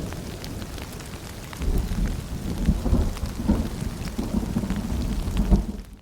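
Steady rain and dripping with a low rumble of thunder that swells about one and a half seconds in and rolls on. Near the end it fades and cuts to silence.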